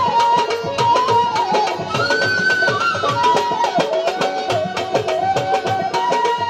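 Bengali Baul folk ensemble playing an instrumental passage: a barrel drum keeps a quick, steady beat under a stepping melody line. The melody climbs to higher notes about two seconds in and comes back down about a second later.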